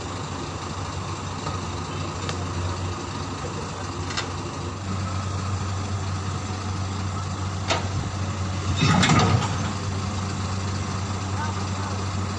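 A heavy vehicle's engine idling steadily, with a few faint clicks and a louder, brief noisy burst about nine seconds in.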